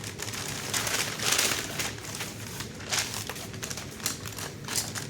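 Packaging crinkling and rustling as blacksmith fire tongs are unwrapped, loudest about a second in, followed by a few short clicks and light knocks from the tongs being handled.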